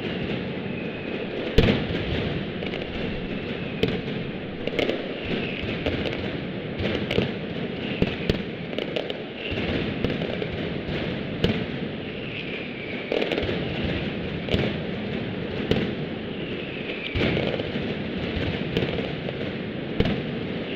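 Mascletà firecrackers going off: a dense, continuous crackling rumble with sharp bangs about every one to two seconds, and now and then a whistle falling in pitch.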